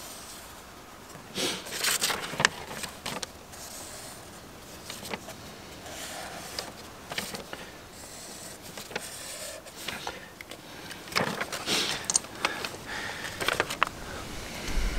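A folded sheet of paper being handled and drawn on with a felt-tip marker: short scratches and paper rustles, with bursts of crinkling a couple of seconds in and again near the end as the sheet is unfolded.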